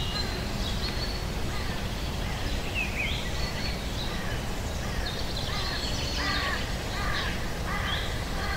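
Birds chirping and calling in short notes that slide up and down, over a steady low rumble. The calls come thicker in the second half.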